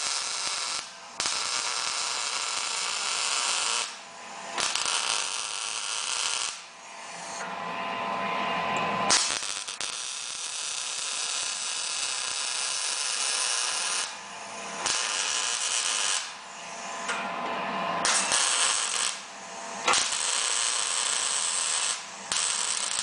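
Electric arc welding on steel: the arc crackles and sputters in a series of weld runs of one to five seconds each, with short pauses between them.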